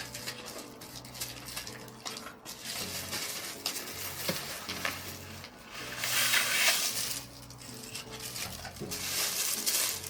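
Scissors scraping and cutting through a parcel's packing tape and wrapping, with rustling of the packaging, loudest about six seconds in and again near the end.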